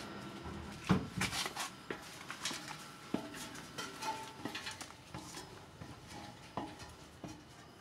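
Metal clanks and footsteps on a steel ladder and grille gate: a quick cluster of knocks about a second in, then single knocks and short squeaks as the steps climb the rungs.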